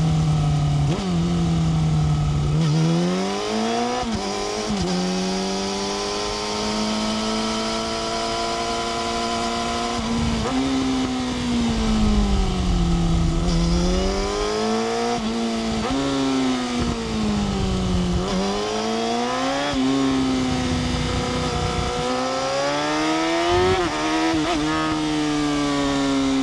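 Yamaha R6 inline-four sport bike engine under hard riding, its revs climbing and falling over and over, with quick dips and drops in pitch as it shifts gears.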